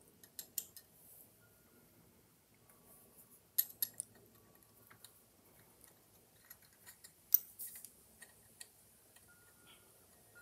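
Small metal clicks and taps of steel gears and shafts being fitted by hand into a Columbia AB Graphophone's spring-motor gear train, some with a brief faint ring. They come in small groups: a few near the start, a cluster about three and a half seconds in, and the loudest around seven and a half seconds.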